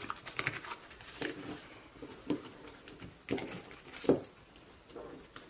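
Light rustling and tapping from sticker sheets and papers being handled on a tabletop: a string of short, separate sounds about a second apart, the strongest near the end.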